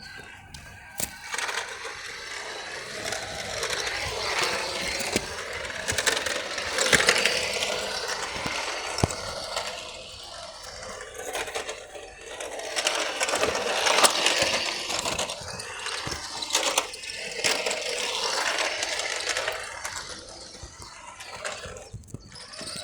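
Toy radio-controlled cars driving, their small electric motors and plastic gears whirring, with clicks and rattles from the wheels on the ground. The sound swells and fades several times as the cars speed up and slow down.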